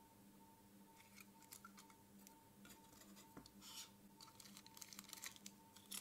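Very faint handling noise: scattered light clicks and rustles as a plastic remote-control housing and circuit board are picked up and moved, over a faint steady hum.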